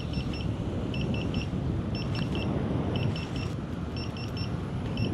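Begode A5 electric unicycle's speed warning alarm beeping in quick triple beeps, repeating about once a second, over a steady rush of wind and tyre noise as the wheel accelerates hard. The alarm signals the wheel has passed its set warning speed.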